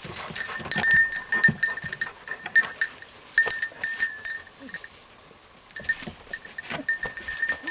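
A dog bell on an English setter's collar jingling in irregular bursts as the dog moves through the cover, quiet for about a second in the middle.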